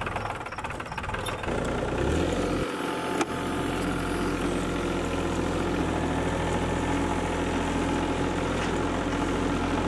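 Compact tractor engine running steadily just after starting, its low note shifting a little about two and a half seconds in. A single sharp click sounds a little after three seconds.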